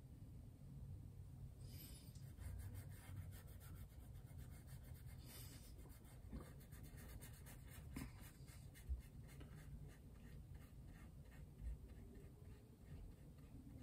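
Fine paintbrush stroking and dabbing paint onto a canvas panel: a faint, quick dry brushing that starts about two seconds in.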